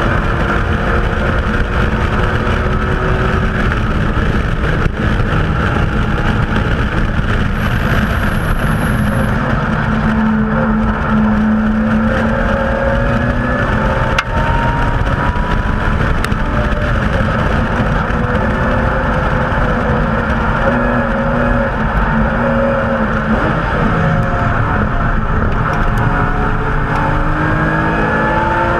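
BMW M Coupe's straight-six engine driven hard on a race track, its pitch climbing repeatedly as it revs out and dropping at shifts and braking, over heavy wind and tyre noise.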